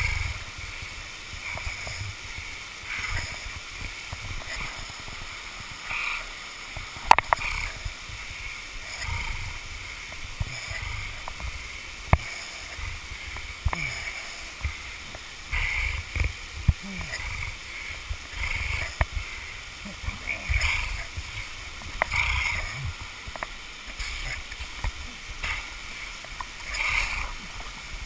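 Water running and splashing over the rock face of a waterfall, close to a body-worn camera, with low rumbling and a few sharp knocks of gear against rock, the loudest about seven seconds in.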